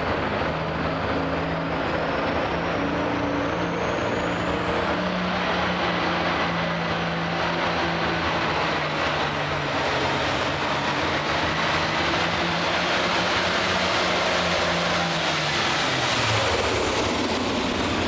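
Hot Farm class Ford 9000 pulling tractor's turbocharged diesel running hard under load as it drags the weight sled. A high turbo whistle climbs about four seconds in, holds steady, then drops away near the end as the engine note falls.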